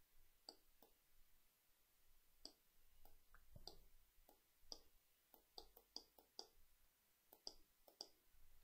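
Near silence broken by faint, irregular clicks, about two a second, from the computer input used to draw on screen.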